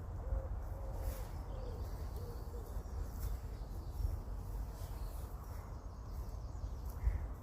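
Birds calling: a series of short, low pitched calls in the first couple of seconds, over a steady low rumble.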